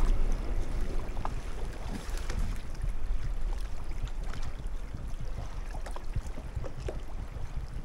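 Low steady wind rumble on the microphone, with faint scattered rustles and small clicks as the angler handles a carp on the ground.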